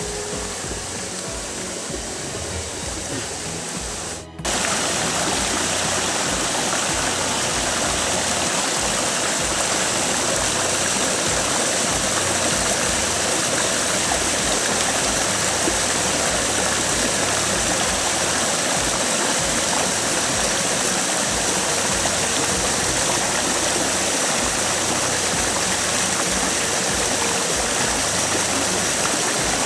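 Creek water rushing over rocks, a steady even rush. A brief dropout about four seconds in, after which it carries on a little louder.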